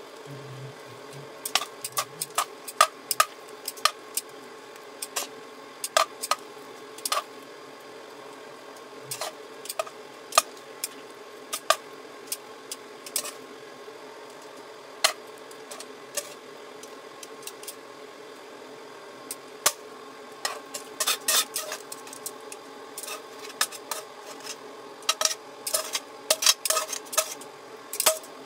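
Metal tongs clinking and scraping against a frying pan and a ceramic plate as linguine in cream sauce is lifted out and plated. The clinks are sharp and irregular and come thicker in the last third, when the pan is tipped and the mushrooms and sauce are scraped out. A steady faint hum runs underneath.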